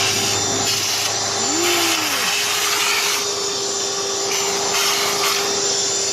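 Vacuum cleaner running, its motor holding a steady whine. The rush of air rises and falls several times as the nozzle is worked over dirt and debris.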